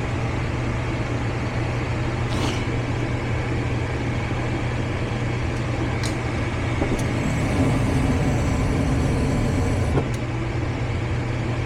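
Gas furnace running with a steady motor hum while calling for heat. A few light clicks come and go over it.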